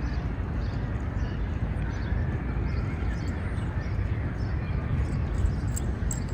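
Outdoor city-park ambience: a steady low rumble of the city with birds chirping briefly now and then over it.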